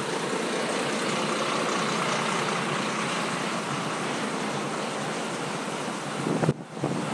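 Road traffic passing close by: the steady rush of engines and tyres from a double-decker tour bus and a London black cab alongside. Near the end, wind buffets the microphone in choppy gusts.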